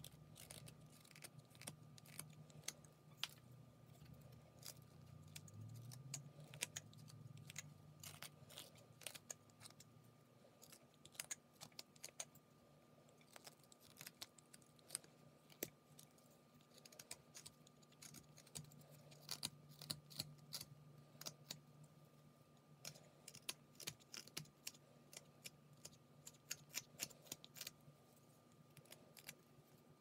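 Carving knife whittling a small piece of wood: an irregular run of short, crisp snicks as each shaving is cut, some coming in quick clusters, over a faint low hum.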